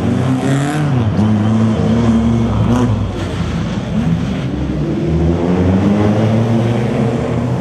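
Rally car engines revving hard, the pitch climbing and dropping again and again with throttle and gear changes. There is a drop about three seconds in, then a long climb near the end.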